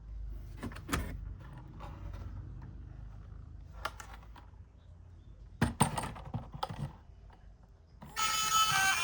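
Plastic toys being handled: a few light clicks and clatters, with a cluster of them in the middle, over a low rumble. Background music starts near the end.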